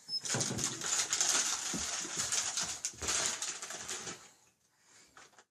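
Rustling and crinkling with many small clicks and knocks as a toddler handles a plastic snack package. The sound stops about four seconds in.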